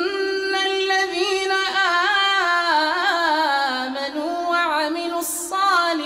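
A male reciter chanting the Quran in melodic tajwid style. His voice holds long notes ornamented with wavering turns, with a short break and an intake of breath about five seconds in.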